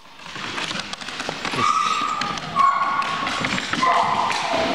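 Footsteps and knocks on a concrete floor, with three short high-pitched tones, each about half a second long, the last one dropping in pitch.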